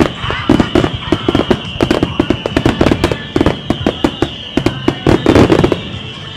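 Japanese starmine fireworks: a rapid barrage of aerial shells bursting, many sharp booms in quick succession, which stops abruptly shortly before the end.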